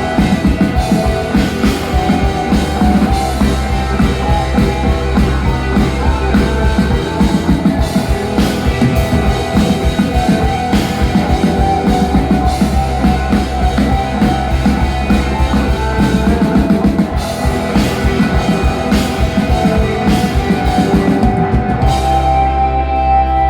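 Instrumental stretch of rock music with a drum kit keeping a steady beat under guitar; no vocals.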